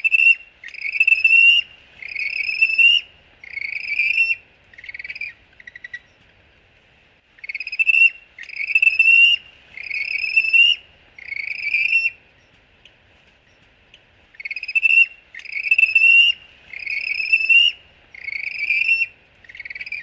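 Penguin chirping: three bouts of four or five high, slightly rising chirps each, with pauses of about two seconds between the bouts.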